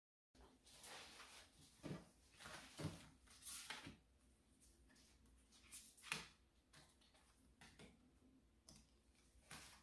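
Small cardstock calendar cards handled and shuffled on a desk: faint paper rustles and light taps, a handful of separate ones over several seconds.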